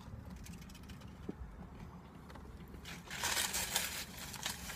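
A person chewing a big mouthful of burrito, faint and wet, over a low steady hum in a car's cabin. About three seconds in comes a short burst of hissing, rustling noise.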